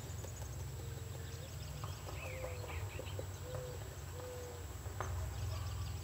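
Faint bird calls from outside over a steady low hum: about four short, low cooing notes, each around half a second, mixed with a few brief high chirps.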